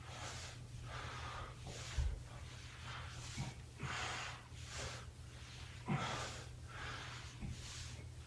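A man breathing hard while doing bodyweight squats, with a quick breath in or out roughly every half second to second. Two low thumps come about two seconds in and again near six seconds.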